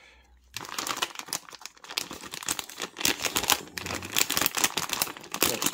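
Metallised anti-static plastic bag crinkling and crackling as it is handled, starting about half a second in.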